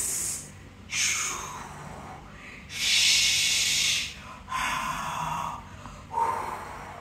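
A woman breathing out the Qigong Six Healing Sounds one after another as slow, breathy exhalations: a falling "chooo", a long hissing "shhh", an open "haaa" and a short "whooo".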